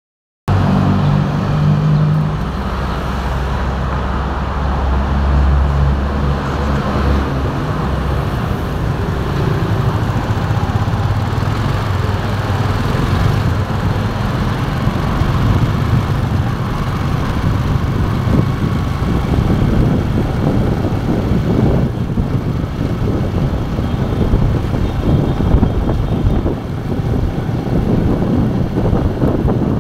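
Motorcycle engine running, heard from the rider's seat, amid city traffic and road noise. A steady engine hum holds for the first several seconds, then gives way to a rougher, noisier rumble.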